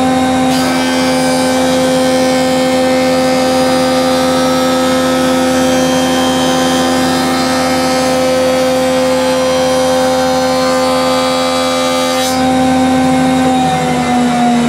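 Jointer running: the motor and cutterhead give a steady whine, and for about twelve seconds the knives cut along the board's edge with a loud, even planing rasp. The rasp stops as the pass ends, leaving the cutterhead spinning free, and the whine begins to fall in pitch near the end.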